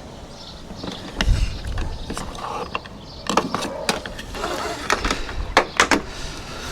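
A string of irregular clicks, knocks and rustling, with a few low thumps, from materials and tools being handled.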